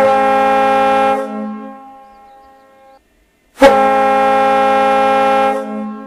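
Kahlenberg T-2 ship's air horn sounding alone, two steady blasts: one at the very start and one about three and a half seconds in, each under two seconds long. Each cuts off sharply and leaves a tail that fades over a second or two.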